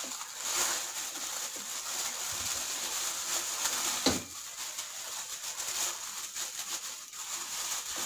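Thin polythene bag rustling and crinkling as fingers work at its knotted top, one-handed, with a sharp click about four seconds in.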